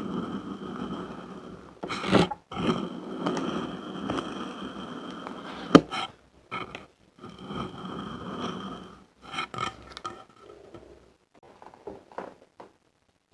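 Kinetic sand being cut and crunched: gritty scraping and crumbling in stretches of a second or more, with short pauses between them and a sharp click about six seconds in.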